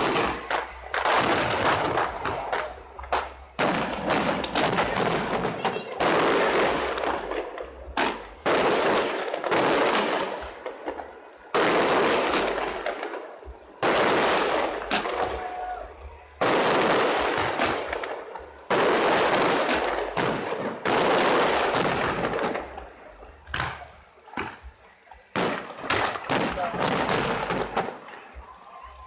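Aerial fireworks display: a loud bang every two to three seconds, each trailing off into crackle, with rapid strings of sharp pops in between.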